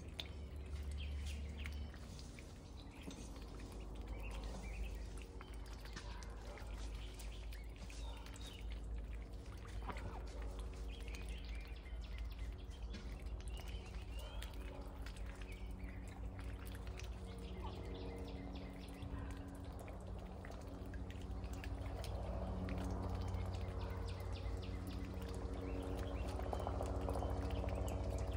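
Ducks dabbling with their bills in a shallow muddy puddle: a continual run of small wet clicks and splashes, with small birds chirping in the background and a steady low hum underneath.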